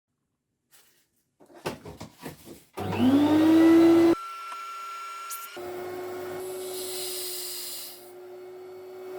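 A few handling knocks, then a vacuum cleaner switched on: its motor spins up with a rising whine, then turns quieter and slightly higher-pitched and runs steadily with shifting air hiss, as its suction is used to pull on a carburetor's diaphragm and plunger.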